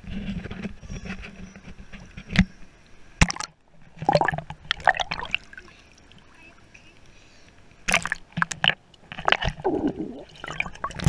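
Water sloshing and splashing around a handheld waterproof action camera, with irregular knocks and rubbing from the camera being handled; near the end the camera is dunked in the water.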